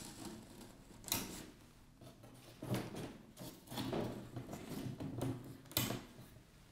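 Power supply cables being handled and their connectors pushed into the Ethernet/PoE ports of microwave link units packed in a cardboard box: scattered clicks and knocks with light rustling of cable and cardboard, the sharpest click about a second in and another near the end.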